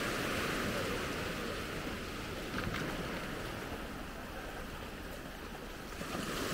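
Small waves breaking and washing thinly up over flat wet sand at the shoreline, with some wind on the microphone. The wash eases off through the middle and builds again near the end.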